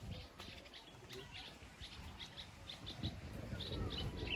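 Small birds chirping outdoors, a quick series of short high notes that comes thicker after about a second, over a low rumble that grows louder near the end.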